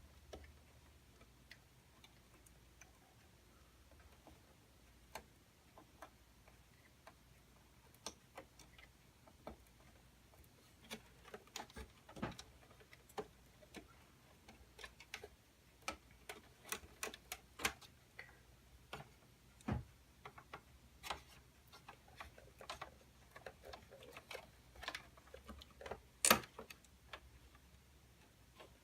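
Quiet, scattered clicks and taps of small plastic connectors and cables being handled inside a computer case as front-panel leads are plugged onto the motherboard. The clicks are sparse at first and come more often from about ten seconds in, with one sharper click near the end.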